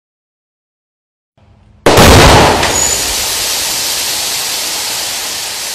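Film special-effects pyrotechnic explosion: a sudden loud blast about two seconds in, followed by a steady rushing noise that slowly fades.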